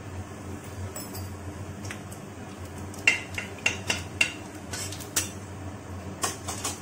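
Metal spatula stirring and scraping in a large aluminium kadai of hot oil: a quick run of sharp clinks and scrapes against the pan from about three seconds in, ending just before the end.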